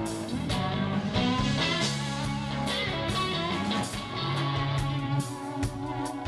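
Live rock band: an electric guitar plays sustained notes over drums, with repeated sharp drum and cymbal hits, recorded loud through a small camcorder microphone.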